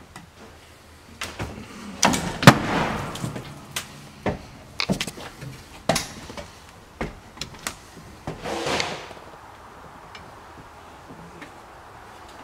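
Wooden pull-down attic ladder knocking and creaking as someone climbs it: a string of sharp knocks, with a longer scraping creak about two seconds in and another past the middle.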